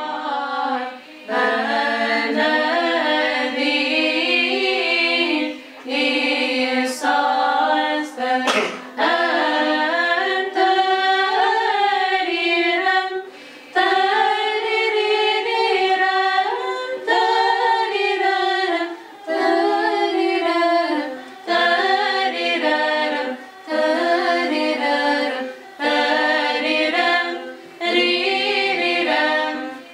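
Unaccompanied choir singing in phrases a few seconds long, with short breaks between them.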